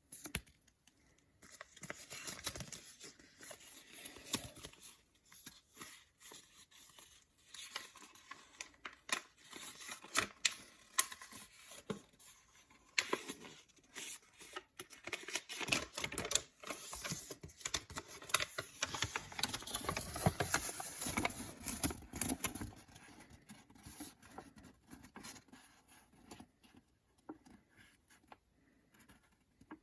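Hands opening and handling a Beyblade toy's packaging: irregular rustling, tearing and small clicks, busiest in the middle stretch.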